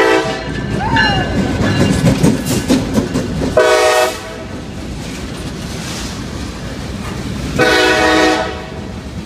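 CSX diesel freight train passing close by, its wheels rumbling and clattering over the rails, while the locomotive's multi-tone air horn sounds three blasts: a brief one at the start, a short one about three and a half seconds in, and a longer one near the end.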